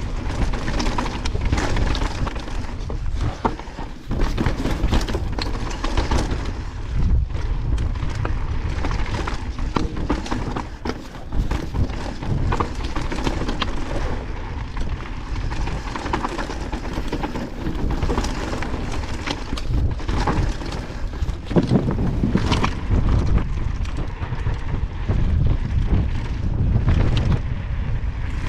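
Evil Wreckoning mountain bike riding fast down a loose slate trail: tyres crunching over rock and gravel and the bike rattling over bumps, with wind rumbling on the helmet camera's microphone.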